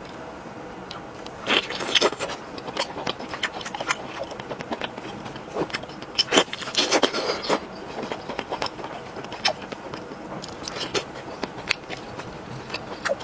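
Biting, chewing and crunching crispy chicken, with sharp crackles that come thickest about 2 seconds in and again around 6 to 7 seconds in.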